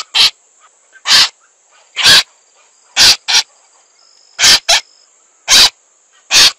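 A crake giving loud, short, harsh calls about once a second, some doubled into quick pairs.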